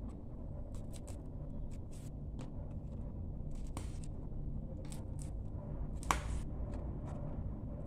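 Fresh green beans snapped by hand into pieces: a series of short crisp snaps at uneven intervals, the loudest about six seconds in, over a steady low hum.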